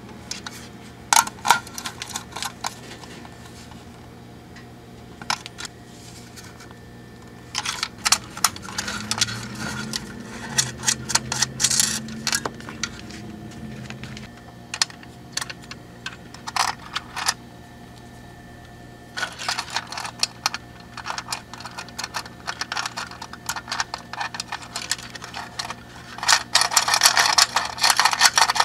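Small clicks, taps and rustles of stiff hookup wires being handled and pushed about inside an aluminium amplifier chassis. They come in three spells with pauses between them: a short one about a second in, a long one in the middle, and a dense one near the end.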